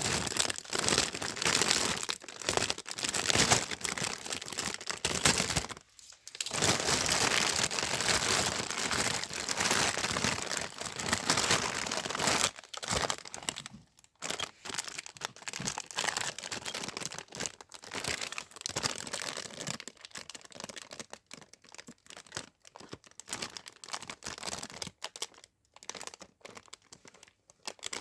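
Parcel wrapping being crinkled and torn open by hand: dense, continuous crackling for the first half, then sparser, intermittent crinkles.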